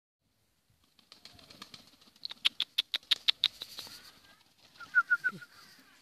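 Pigeon wings clapping and flapping as a bird takes off, a rapid run of sharp claps about six a second lasting just over a second. About five seconds in comes a short run of four high chirping notes.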